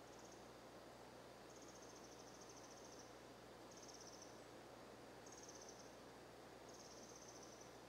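Near silence, with faint high-pitched pulsing trills from a small animal repeating about every second and a half, some short and some over a second long.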